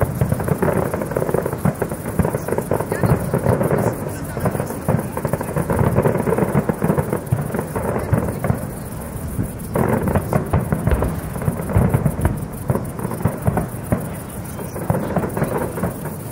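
Fireworks going off: a dense run of booming shell bursts and crackles, with music and crowd voices underneath.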